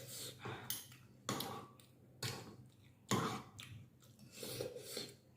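Close-miked eating of vegetable thukpa noodle soup: chewing, with a sudden noisy mouth sound about once a second.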